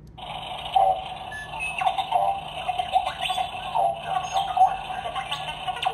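Recorded Jawa chattering and sound effects played through the small speaker of a Hallmark Jawa Sandcrawler ornament, set off by pressing it. The sound is thin and tinny, full of quick chirps that slide up and down.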